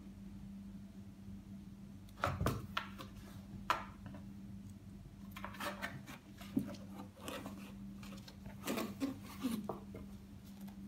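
Cats scratching and bumping against a cardboard box: irregular clusters of short scrapes and taps on the cardboard, over a steady low hum.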